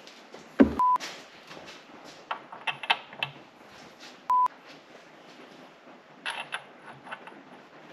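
Two short censor bleeps, each a steady high tone, about three and a half seconds apart, among faint clicks and knocks.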